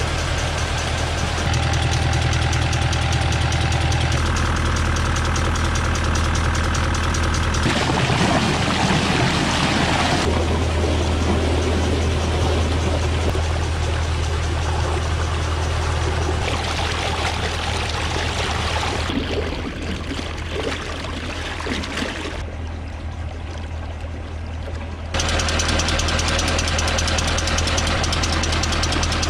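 Tractor diesel engine running steadily under load, driving a tubewell pump through flat belts, with water gushing out of the pump's outlet pipe. The mix of engine and water changes several times, and there is a quieter stretch about two-thirds of the way through.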